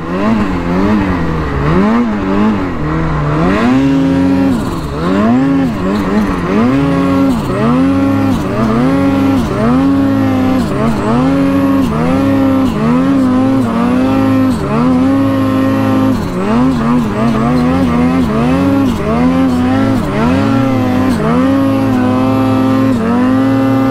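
Ski-Doo mountain snowmobile's engine revving up and down over and over, about once a second, as the sled is throttled through deep powder.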